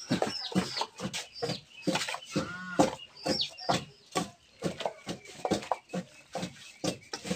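Metal spoons scraping and clinking in a metal pot while shredded tagbak pith is mixed by hand, in quick irregular strokes. A chicken clucks in the background about two and a half seconds in.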